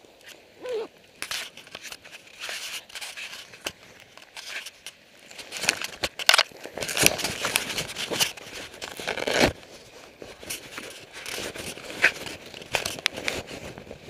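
Irregular rustling and crackling right at the microphone from a handheld camera being gripped and moved about, thickest in the middle of the stretch.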